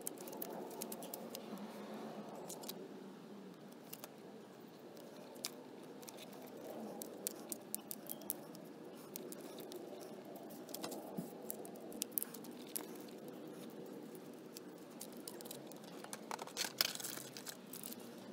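Hands fitting a strap and mounting hardware to a motorcycle frame: rustling and scraping with scattered small clicks and rattles, and a quick flurry of clicks near the end.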